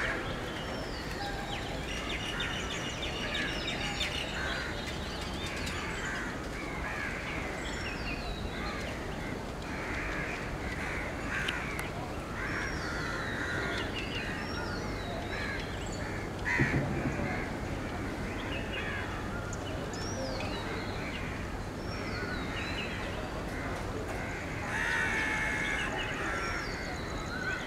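Birds calling and chirping over a faint, low, steady rumble from a slowly approaching diesel locomotive. There is one brief louder sound just past halfway.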